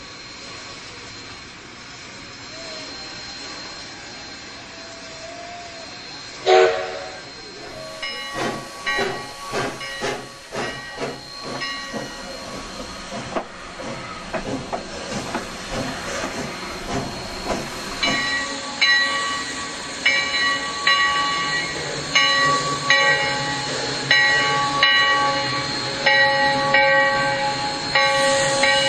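Steam locomotive sounds for a model of Sierra Railway #3: a steady hiss, a short whistle blast about six and a half seconds in, then rhythmic exhaust chuffs that grow louder in the second half.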